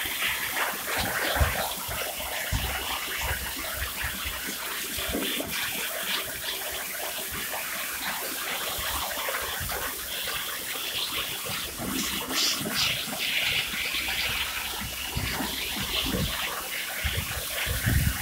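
Pressure washer lance jetting water onto woven olive-press mats, a steady spraying and splattering as the jet washes the mats clean.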